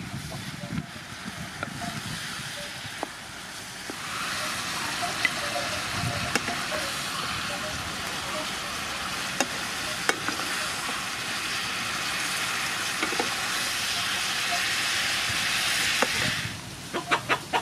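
Sea snails and vegetables sizzling in hot oil in a frying pan, stirred with a wooden spatula that knocks against the pan now and then. The sizzle grows louder about four seconds in, cuts off near the end, and is followed by a quick run of clicks and knocks.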